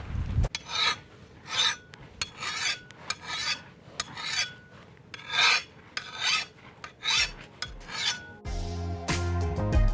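Flat metal file drawn across the edge of a garden hoe's steel blade to sharpen it: about a dozen rasping strokes at a steady pace, roughly one every two-thirds of a second. Music comes in near the end.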